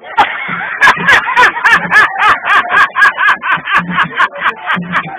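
A man with missing front teeth laughing loudly and hard, in a fast, rhythmic cackle of about four bursts a second.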